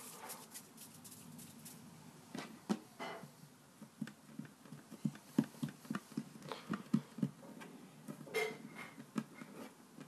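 Fingers pressing and patting a lump of play dough flat against a wooden tabletop: soft, irregular taps and knocks that come thickest in the middle.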